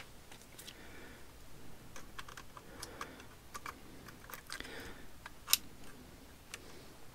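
Scattered small plastic clicks and light scraping as a laptop RAM stick is worked into its memory slot without seating fully. The sharpest click comes about five and a half seconds in.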